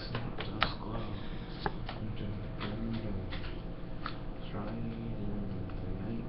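Indistinct low voices with a steady hum underneath and a few scattered light clicks.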